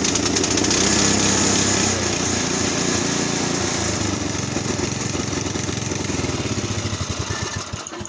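Poulan rear-tine tiller's small gasoline engine running steadily. It runs now that it has been given gas, so the no-start was simply an empty tank. The engine shuts off near the end.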